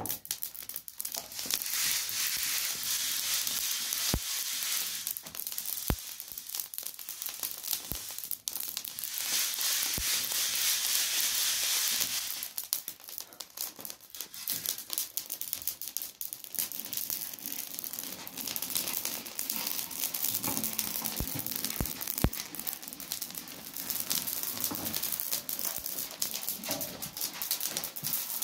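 Dry grain rustling and crackling in a hot iron pan as it is stirred and roasted over a wood fire, in long stretches of dense hiss with a few sharp clicks.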